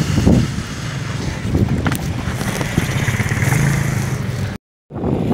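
Road traffic: vehicle engines running close by in slow, jammed traffic, with wind rumbling on the microphone. The sound cuts out completely for a moment near the end.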